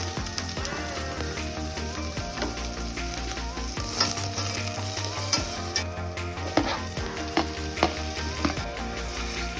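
Food sizzling as it fries in a pan while it is stirred. A utensil knocks sharply against the pan several times in the second half.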